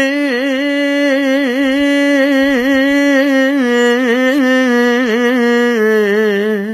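A single voice singing an Urdu naat, holding one long ornamented note with small wavers that steps down in pitch twice in the second half.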